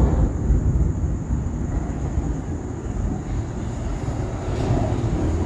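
Thunder rolling in low rumbles, easing off over the first couple of seconds and then rumbling on more steadily.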